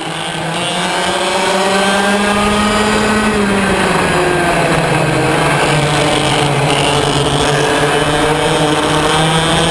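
Racing kart engine heard from an onboard camera, running at high revs. Its pitch drops about three and a half seconds in, then holds steady.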